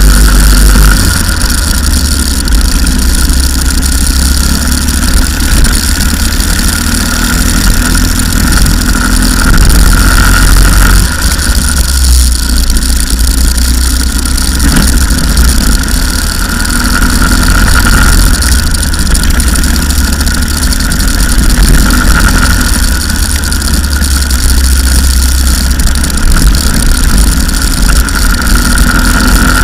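Go-kart engine heard from an onboard camera on the kart, its high-pitched note rising and falling several times as the kart speeds up and slows through the lap. A heavy, steady low rumble of wind and vibration on the microphone lies under it.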